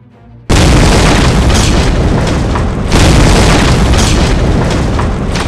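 Explosion sound effect: a sudden loud blast about half a second in, then a long roar, with a second blast about three seconds in that dies away near the end.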